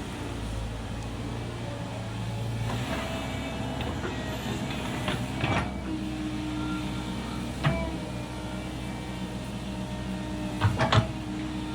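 Komatsu PC135 hydraulic excavator running steadily at work, with several sharp metallic knocks, the last two close together near the end.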